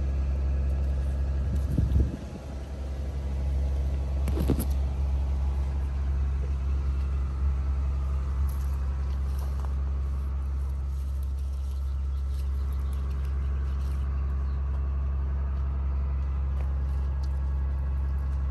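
Steady low rumble, with leaves rustling and a couple of sharp snaps and knocks about two and four and a half seconds in as ripe cherries are pulled off a tree branch by hand.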